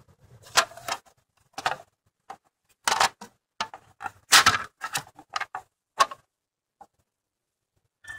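Irregular short rubbing and clicking noises, several in a row with pauses between them, from a hand moving over and tapping the plastic engine cover of an Acura.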